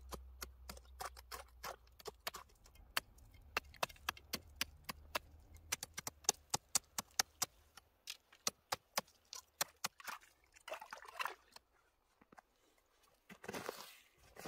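Knife blade stabbed repeatedly into lake ice, a fast irregular run of sharp clicks as it chips out a fishing hole, then a rougher scraping. Near the end, a crunch of boots on the icy snow.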